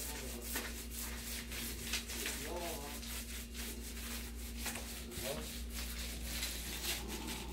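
Paint roller rubbing against a wall in repeated short scratchy strokes, a few a second, over a steady low hum.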